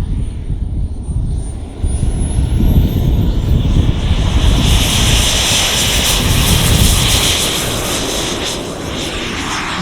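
Turbine engine of a model Eurofighter Typhoon jet, its high whine climbing in pitch about a second in as it spools up, then a loud jet rush that peaks in the middle and eases near the end.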